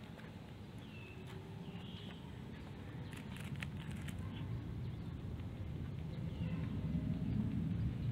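A cat eating rice from a styrofoam tray, with soft chewing and a few short clicks about three seconds in. Brief bird chirps sound now and then over a low rumble that swells toward the end.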